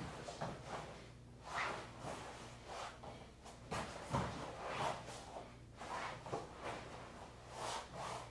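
A person rolling on a foam floor mat through hip-switch drills: irregular rustling of clothing and soft thumps of the body against the mat, with one heavier thud about four seconds in.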